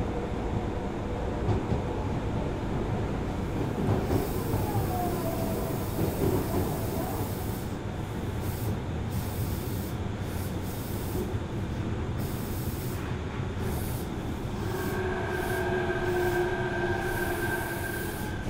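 Osaka Municipal Subway 66 series train with a Mitsubishi IGBT inverter, running, heard from inside the car: continuous wheel and track rumble. A brief wheel squeal comes about four to five seconds in, and steady whining tones start about fifteen seconds in.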